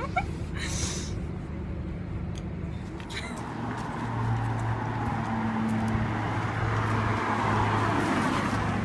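Vehicle running: a steady low hum, with a rushing noise that grows louder about four seconds in and a few faint clicks near the start.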